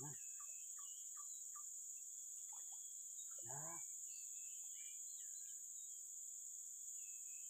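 Steady high-pitched drone of insects, with short bird chirps scattered through it and a brief voice about three and a half seconds in.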